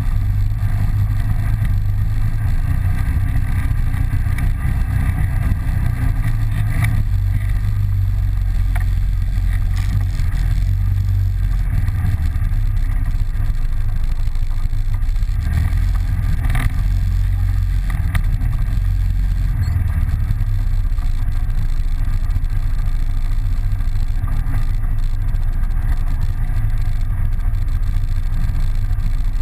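ATV engine running steadily while the quad rides along a bumpy dirt trail, heard close from a camera mounted on the machine.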